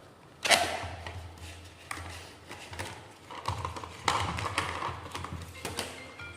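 Handling noise from a carbon monoxide detector being set up: irregular taps and knocks, with the loudest knock about half a second in.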